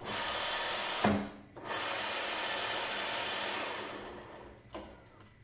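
Electric wheel drive motors of a remote-controlled lawn mower spinning its raised wheels, with a steady whirring noise. They stop briefly about a second in with a low thump, run again, then wind down and stop near the end.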